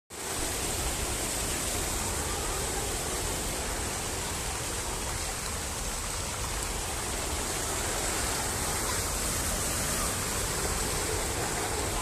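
Water pouring over a dam's weir crest and falling into foam below: a steady, even rushing.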